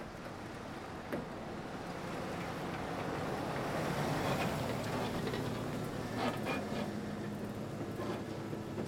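A pickup truck approaching and slowing to pull over: engine and tyre noise swell to their loudest about four seconds in, then ease off. A few short knocks come about a second in and again near the end.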